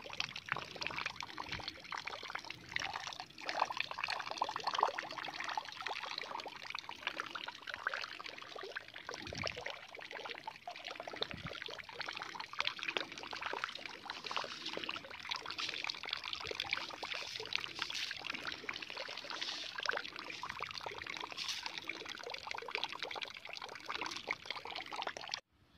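Heavy rain mixed with hail, a dense, steady patter of countless small impacts with the sound of water running. It cuts off suddenly near the end.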